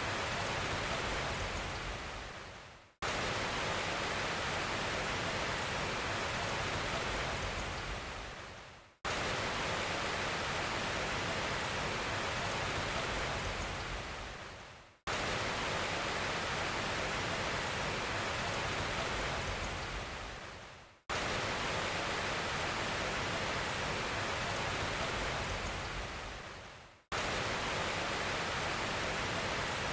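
Steady rushing noise, spread evenly from low to high pitches, in a loop that fades out and restarts abruptly about every six seconds.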